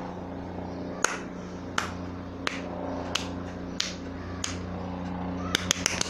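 Sharp single clicks at an even pace, about one every 0.7 seconds, over a low steady hum. Near the end the clicks speed up to several a second.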